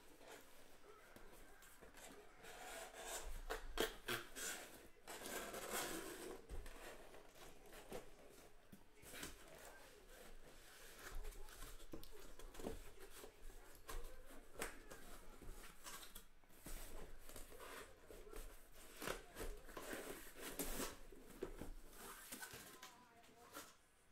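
Cardboard inner case of trading-card hobby boxes being cut open and unpacked: irregular scraping, rustling and tearing of cardboard, broken by sharp clicks and knocks.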